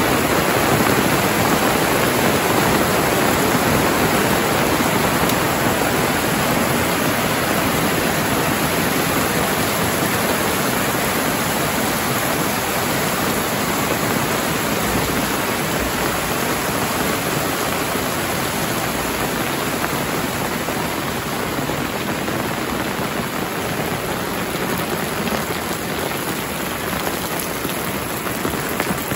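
Heavy rain pouring steadily onto corrugated metal roofs and foliage.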